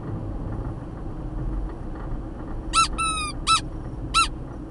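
Squeaky red clown nose squeezed by hand, giving four short high-pitched honking squeaks in about a second and a half, starting near three seconds in; the second squeak is longer and dips in pitch.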